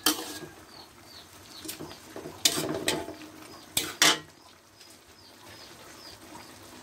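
Metal spatula scraping and knocking against a steel wok as chicken and carrot strips are stir-fried, in a few separate strokes near the start, around the middle and about four seconds in, then quieter.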